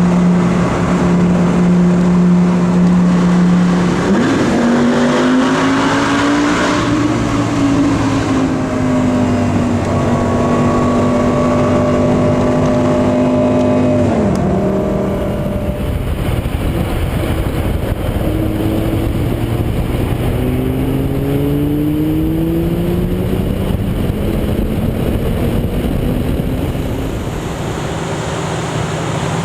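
Lamborghini Gallardo's V10 engine running under load. Its note holds steady for about four seconds, then rises and falls, drops sharply about halfway through, and then climbs slowly and steadily for about ten seconds as the car accelerates through a gear.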